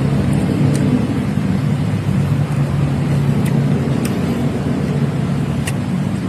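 A motor vehicle's engine running steadily at close range, with a low hum under road noise and a few faint ticks.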